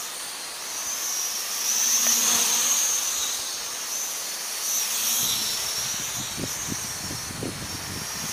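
Whine of a small toy quadcopter's motors and propellers as it flies fast in high rate, a steady high tone that wavers up and down in pitch. Wind buffets the microphone from about halfway through.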